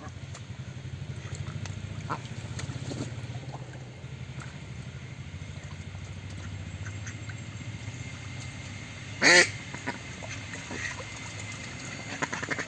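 Mallard ducks splashing about in shallow water as a drake mounts a hen, with one short, loud quack about nine seconds in.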